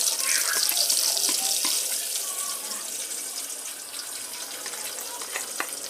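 Eggs frying in cooking oil in a pan: a steady high sizzle with a few small pops, slowly getting quieter.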